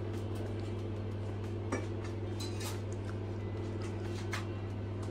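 Steady low electrical hum of a milk vending machine running, with a few light clicks and clinks from a glass bottle being handled.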